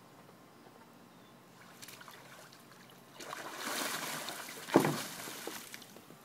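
A Rhodesian Ridgeback sloshing and splashing through shallow water in a plastic kiddie pool, starting about three seconds in, with one loud splash about a second and a half later before the water settles.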